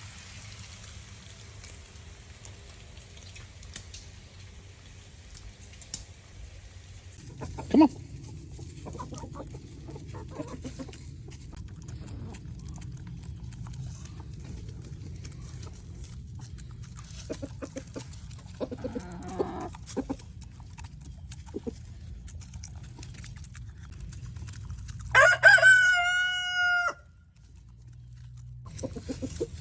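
Backyard chickens clucking now and then, with a short loud call about eight seconds in, and a rooster crowing once near the end for about two seconds, the loudest sound of the stretch.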